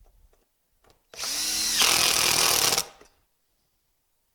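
Power drill driving a small Phillips screw into a screen latch: one burst of a little under two seconds, starting about a second in, with a few faint clicks before it.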